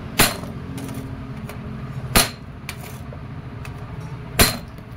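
Three hammer blows, about two seconds apart, on a steel punch held against the steel brake band of a Fiat 480 tractor. Each is a sharp metallic strike with a brief ring, as the old brake lining is worked off the band.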